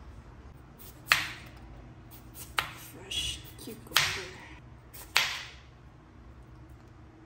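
Chef's knife slicing a cucumber into rounds on a bamboo cutting board: four crisp cuts, each ending in a knock of the blade on the board, about every second and a half, with a softer scrape between the second and third.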